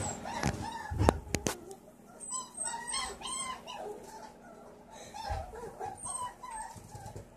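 Puppies whining in short runs of high, squeaky whimpers. A few sharp knocks, likely from handling the phone, come about a second in.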